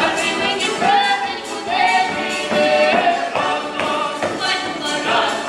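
Ukrainian folk ensemble singing a song in several voices, women leading, over accordion and cymbaly accompaniment with a steady tambourine beat.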